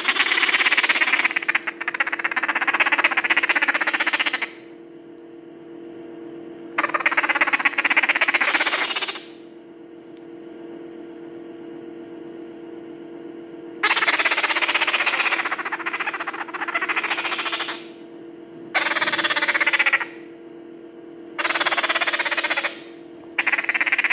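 Parrot chicks, a maritaca and a turquoise-fronted amazon, making rapid, pulsing, raspy food-begging calls while being hand-fed cornmeal mash. The calls come in about six bursts of one to four seconds each, with quieter gaps between.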